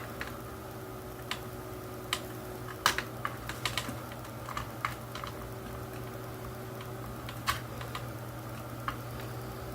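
Irregular small hard clicks and taps of a precision screwdriver and loose screws against a plastic toy drone's shell while its screws are being worked out, a cluster of them a few seconds in, over a steady low hum.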